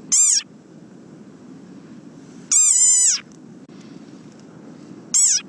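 Desert rain frog giving three high, squeaky-toy-like calls, the middle one longest, each bending up then down in pitch. A steady low hiss runs beneath them.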